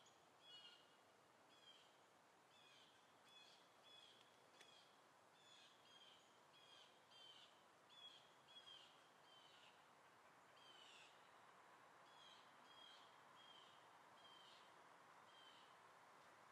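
Faint bird calls: short, high notes repeated irregularly every half second or so, several slurring downward, over a faint steady hiss of background noise.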